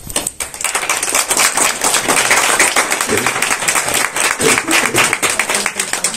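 Applause: a group clapping steadily, starting just after the start and breaking off near the end.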